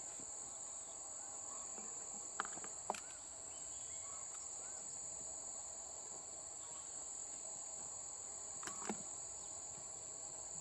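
A steady, high-pitched chorus of insects droning without a break, with a few faint clicks: two close together a couple of seconds in and two more near the end.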